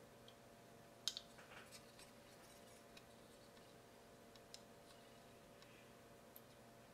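Near silence with a few faint clicks and taps of hard plastic scale-model parts being handled and pressed together, the sharpest about a second in, over a faint steady hum.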